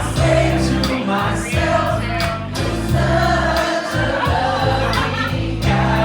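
Music: a song with singing voices over a steady bass line and a regular beat.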